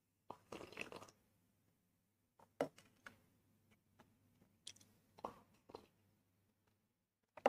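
A person sipping and slurping green chutney from a small steel bowl: one quiet slurp about half a second in, then scattered small mouth clicks and smacks between sips.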